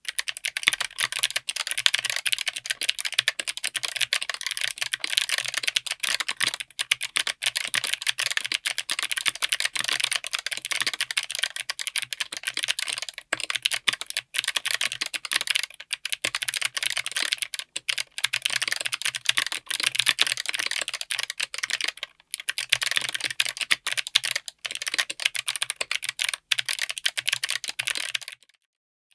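Fast typing on a mechanical keyboard with Kailh BOX Crystal Jade clicky switches, mounted on an FR4 plate in an aluminium case: a dense, continuous stream of sharp clicks with a few brief pauses. The typing stops shortly before the end.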